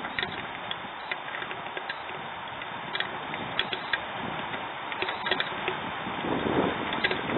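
Steady rushing background noise with scattered sharp ticks, and a louder rushing roar that builds from about six seconds in.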